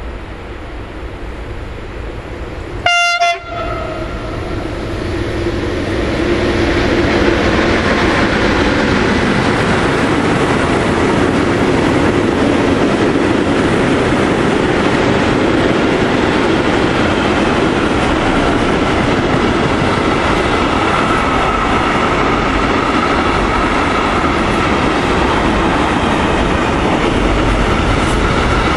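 A freight train's locomotive gives one short horn blast about three seconds in. The train's noise then builds as it draws near, and a long string of tank and freight wagons rolls past with steady wheel-on-rail noise.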